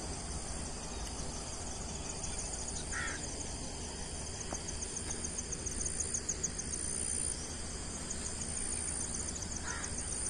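Insects chirping in a steady, rapid high-pitched pulsing trill over a low, steady rumble of outdoor background noise, with two short chirps, about three seconds in and near the end.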